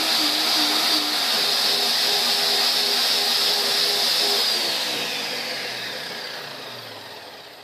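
Two high-powered countertop blenders, a Vitamix and a Ninja, running together at full speed through thick vegetable soup with a loud, steady motor whine. About four seconds in, the Ninja's button is pressed and the motor winds down, its pitch falling as the noise slowly fades.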